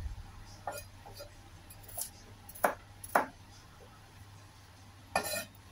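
Kitchen knife chopping carrot on a wooden cutting board: a few separate sharp knocks, the two loudest about half a second apart past the middle, and a short burst near the end, over a low steady hum.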